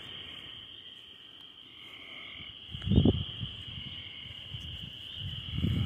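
Steady high trilling of a night insect chorus, with a low thud about three seconds in and a softer low rumble near the end.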